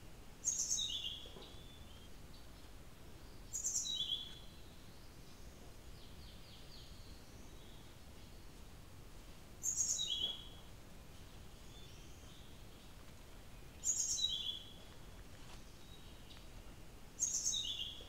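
A blue flycatcher singing five short, high whistled phrases a few seconds apart. Each phrase starts very high and drops to a lower run of notes.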